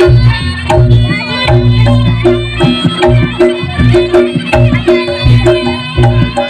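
Reog Ponorogo accompaniment music: hand drums and repeated pitched gong-like strokes in a fast, steady rhythm, with a reedy wind-instrument melody above.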